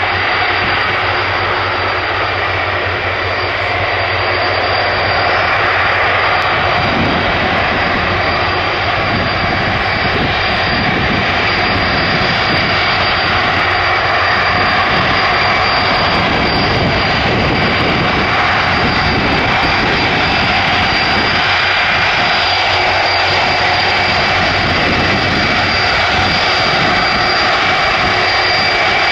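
Boeing 747-400 freighter arriving, its four jet engines running loud and steady with a high-pitched fan whine, the low rumble filling in after a few seconds.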